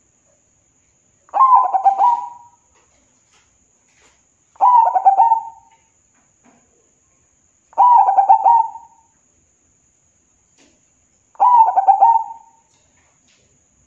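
A zebra dove (perkutut) in full song: four phrases of rapid, stuttering coos, each about a second long, one every three to four seconds.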